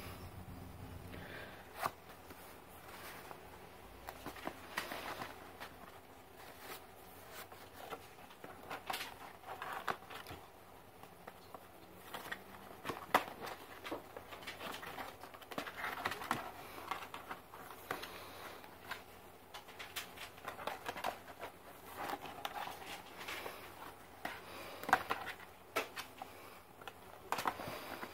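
A cat scuffling with a cardboard tube and a sneaker on a tile floor: scattered light scratches, taps and rustles as her claws catch and scrape.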